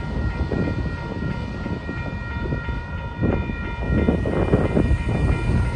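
Railroad crossing warning bell ringing steadily while the crossing is still active after the freight train has passed, over a low rumble that grows louder about three seconds in.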